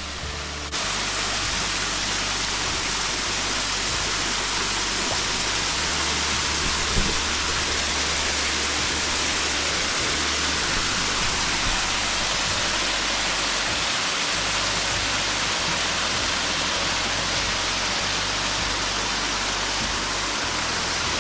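Waterfall: falling water making a steady, even rush, which steps up in level a little under a second in.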